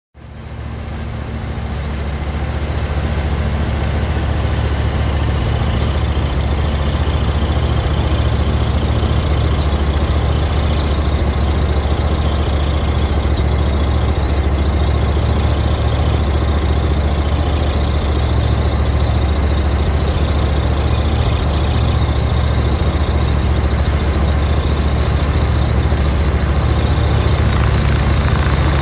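Bobcat ZS4000 stand-on mower with a 61-inch deck mowing grass, its engine running steadily at an even speed. The sound swells over the first couple of seconds and then holds.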